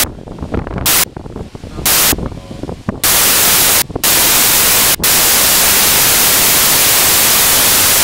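Strong wind gusts blasting the microphone and overloading it into a harsh, static-like hiss. It comes in short bursts about a second apart at first, then runs almost without a break from about three seconds in.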